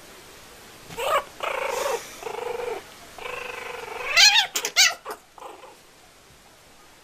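Cries from a kitten or puppy during a rough play-fight between the two. About a second in come four drawn-out cries, then a quick run of sharp cries that bend up and down in pitch near the middle. They die away by about five and a half seconds.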